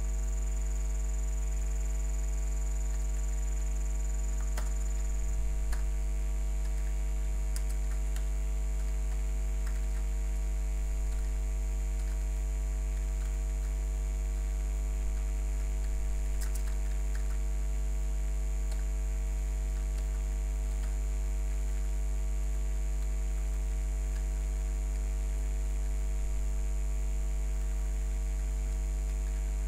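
Steady electrical mains hum, a low drone with a ladder of overtones above it, with a few faint clicks now and then.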